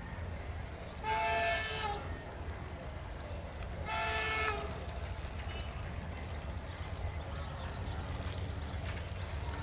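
Horn of a Romanian 060-DA 'GM' diesel-electric locomotive sounding two blasts, several tones together: one of about a second starting a second in, and a shorter one about four seconds in. A steady low rumble runs underneath.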